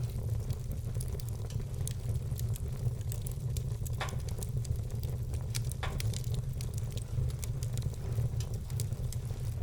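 Wood fire crackling in a fireplace: frequent small snaps with a couple of louder pops, about four and six seconds in, over a steady low rumble.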